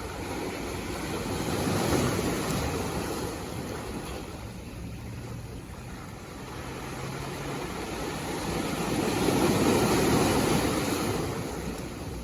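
Sea waves washing in: two swells of surf noise, the second one louder and longer, about two seconds in and again near the end. A faint steady low hum runs under it in the middle.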